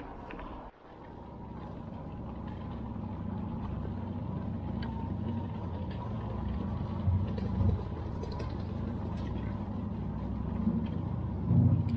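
Steady low rumble of riding a small electric two-wheeler over a stone-paved lane: tyre noise and air moving over the microphone. It drops out briefly just under a second in, then builds gradually, with a few louder bumps later on.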